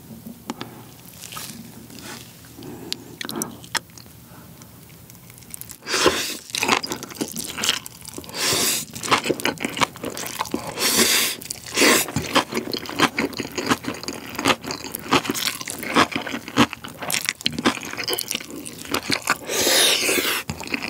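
Close-miked eating of Chapagetti black-bean noodles wrapped in spicy kimchi: loud wet slurps of the noodles and crunchy, wet chewing of the kimchi cabbage. The sounds are softer for about the first six seconds, then come thick and loud.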